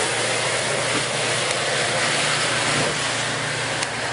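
Coaster commuter train's F40PH-2C diesel locomotive shoving the train out of the station. A steady engine drone mixes with wheel and rail noise as it rolls by close.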